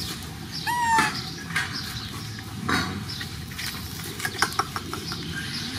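A young animal gives one short squeak about a second in, with scattered rustling and small taps around it.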